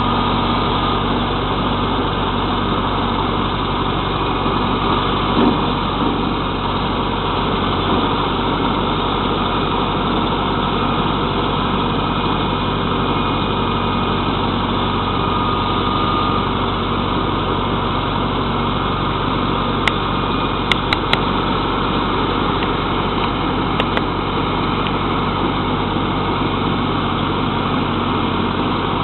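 Ford/New Holland 6640 tractor's four-cylinder diesel engine running steadily, driving an Alamo boom flail mower cutting brush. A few sharp clicks come about two-thirds of the way in.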